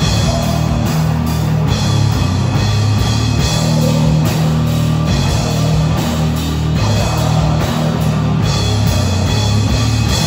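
Live rock band playing loud, with electric guitars and a drum kit.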